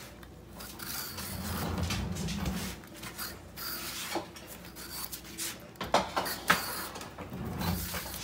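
Knife blade scraping the skin off a long Italian gourd in repeated downward peeling strokes, with two sharp taps about six seconds in.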